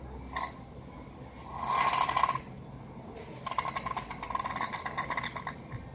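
Aerosol can of shaving foam being sprayed in two bursts, a short one about two seconds in and a longer, crackly one a little later.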